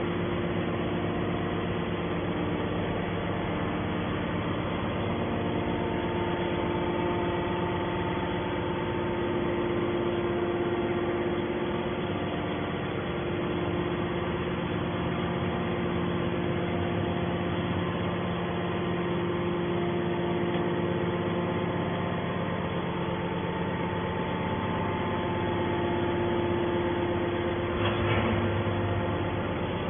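Gasoline engine of a scrap-metal baler running steadily, with a brief louder burst near the end.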